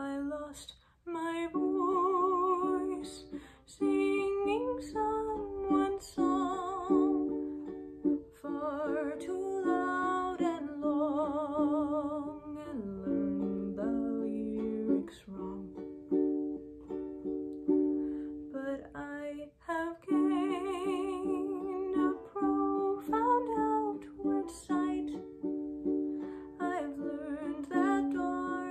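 A ukulele strummed as accompaniment to a young woman's solo singing, with a wavering vibrato on held notes.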